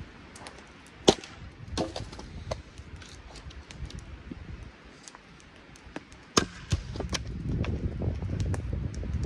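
Axe chopping firewood on a stump chopping block: a sharp crack about a second in, a few lighter blows after it, and another strong pair of strikes past the six-second mark.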